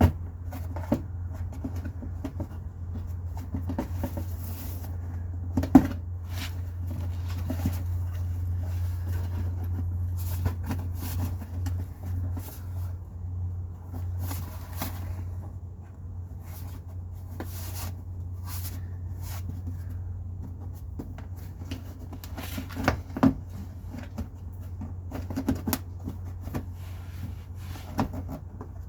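Scattered clicks, clunks and knocks of car parts being handled and fitted by hand, the sharpest about six seconds in and a pair just past the two-thirds mark, over a steady low hum.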